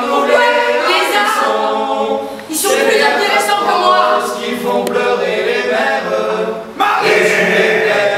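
Several voices singing together a cappella, in long phrases with short breaks about two and a half and about seven seconds in.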